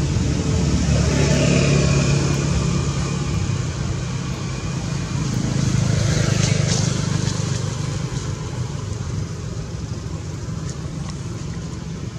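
A motor engine running with a steady low hum, growing quieter over the second half.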